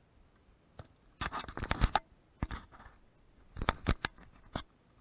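Scratchy rubbing and several sharp knocks close to the microphone, in two clusters about a second in and near the end, with a shorter scrape between them: a hand handling the camera.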